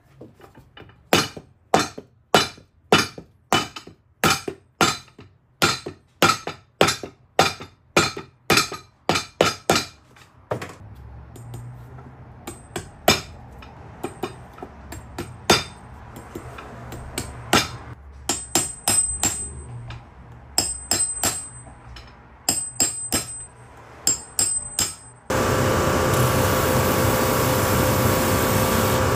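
Shoe repairer's hammer striking a boot during resoling: steady blows about two or three a second for some ten seconds, then slower, irregular taps. Near the end a machine switches on suddenly and runs with a steady whirr.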